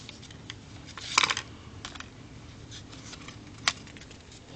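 Trading cards and the phone being handled: soft clicks and rustles, with a louder clattering cluster about a second in and a single sharp click near the end.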